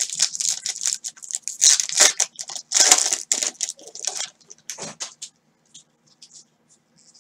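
Foil wrapper of a 2018 Topps Museum Baseball card pack crinkling and tearing as it is opened and the cards are slid out. The crinkling stops about five seconds in, leaving a few faint ticks.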